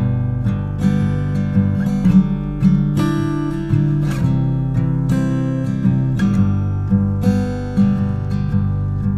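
Background music: a light, steady track of strummed acoustic guitar chords.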